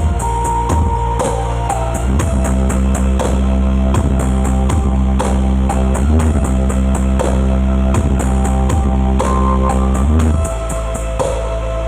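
Loud rock-style music with heavy sustained bass, drums and guitar, played through a large sound-system rig during a sound check. The bass line shifts about two seconds in and again near the end.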